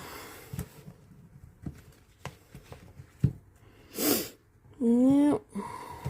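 A few light clicks and knocks from silicone mold pieces being handled and pressed together, then a loud exhaled huff through the nose about four seconds in and a short vocal sound just after.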